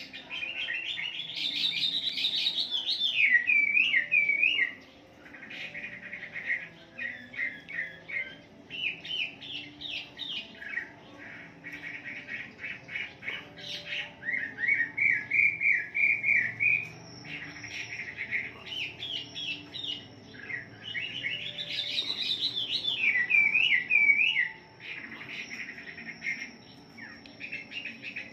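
Chinese hwamei (wambi) singing a long, varied song of loud whistles and warbles with quick repeated notes, broken by short pauses. A similar rising-and-falling phrase comes back about twenty seconds later.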